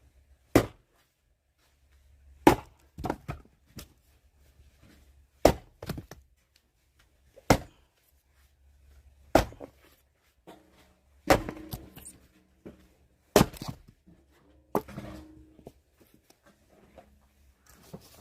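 Axe splitting firewood logs: about eight sharp chops, roughly two seconds apart, several followed by smaller knocks.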